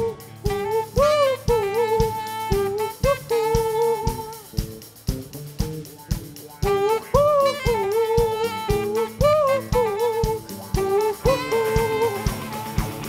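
Live band playing an instrumental passage: a saxophone carries a bending solo line over a steady drum-kit beat, bass and guitars.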